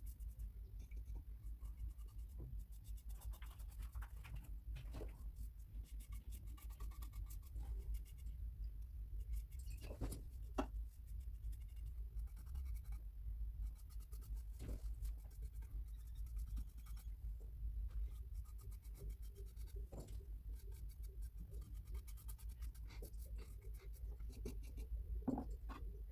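Paintbrush stroking sealer onto a pine board: a run of quick, scratchy bristle strokes on the wood with an occasional light knock, over a low steady hum.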